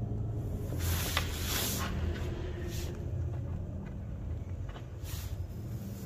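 Gateron Milky mechanical keyboard switch being pressed into a metal switch opener and its housing prised apart: brief scuffs and a few light plastic clicks, over a steady low hum.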